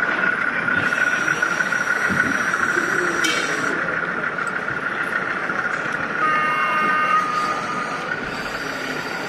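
Model trains running on an exhibition layout amid hall ambience, with a steady high whine throughout. There is a sharp click about three seconds in, and a short chord-like tone about six seconds in that lasts under two seconds.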